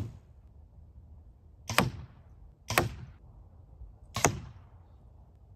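Arrows striking a field archery target butt: four sharp hits about a second apart, the first right at the start, each with a brief fading ring.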